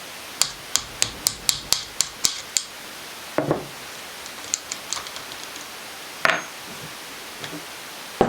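Metal-on-metal tapping on a stuck wrist pin in a two-stroke piston: a quick run of about nine light taps, then a heavier knock, a few fainter taps and another knock. The pin is tight and resisting being driven out.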